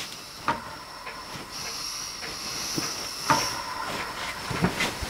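Steam hissing from the jets of a scratch-built horizontal Hero engine (aeolipile), growing stronger about a second and a half in, with a couple of sharp clicks. The boiler's steam pressure is still just short of what it takes to spin the rotor on its own.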